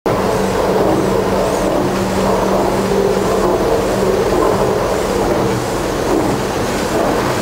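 Werkspoor drop-valve stationary steam engine, with Meier Mattern hydraulic valve gear, running steadily and driving the mill's large spur gearing. A loud, even machinery noise with a constant low hum underneath.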